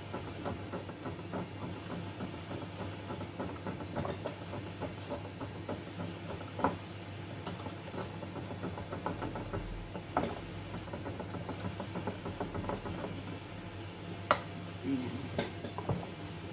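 Wire whisk beating thin crepe batter in a glass bowl: a quick, steady run of light ticks and scrapes against the glass. Near the end a sharper clink stands out.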